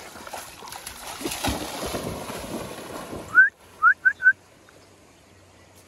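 Splashing and sloshing creek water as a dog wades and swims with a stick. After a sudden cut, four short rising whistle notes in quick succession, the loudest sounds here.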